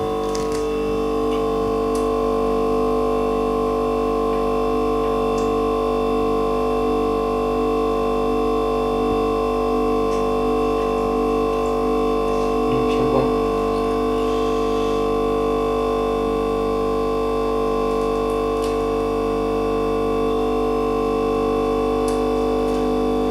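Steady electrical hum made of several held tones, with a slow pulse about once a second and a few faint clicks.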